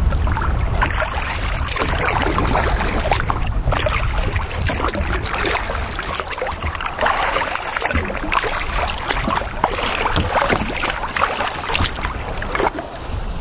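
Kayak paddle dipping and splashing in the water, with many short irregular splashes over a low wind rumble on the microphone.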